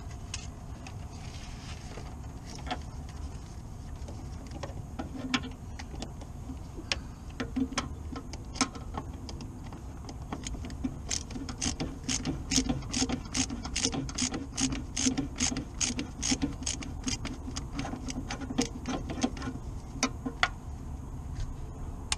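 Hand ratchet clicking on a fastener: a few scattered clicks at first, then a steady run of about three or four clicks a second lasting some eight seconds.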